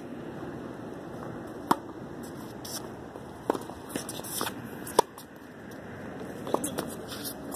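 Tennis balls struck by rackets in a rally: four sharp hits about a second and a half apart, alternating louder and fainter as the ball goes back and forth across the net.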